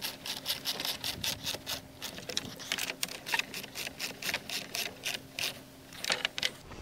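Socket ratchet wrench clicking rapidly, about six clicks a second, as a bolt is run down and tightened, with a short pause near the end.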